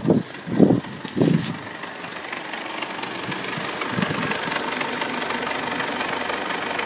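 Mazda MZR-CD 2.2 four-cylinder turbo-diesel idling with a steady diesel clatter, growing louder about two to four seconds in and then holding. A few dull thumps come in the first second or so.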